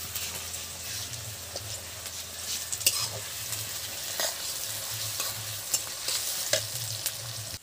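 Sliced onions and whole spices sizzling steadily in hot oil while being stirred in the pan, with a few sharp clicks of the stirring utensil against the pan.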